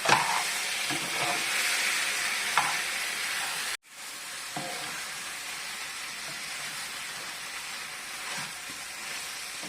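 Marinated chicken sizzling in a pan with fried onion and tomato masala as it is stirred. The sizzle drops out briefly about four seconds in and comes back quieter.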